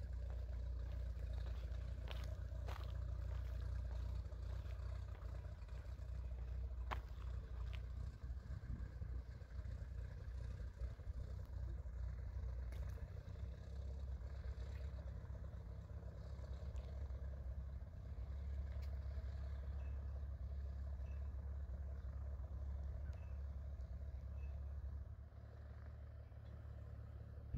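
A steady, low engine rumble heard from a distance, with a few faint clicks.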